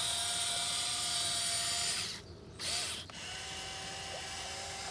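1580 RC excavator's electric motors and gears running with a steady whine for about two seconds, stopping briefly, then whining again at a slightly higher pitch.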